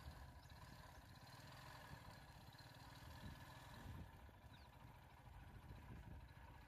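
Near silence, with the faint steady low rumble of an idling vehicle engine.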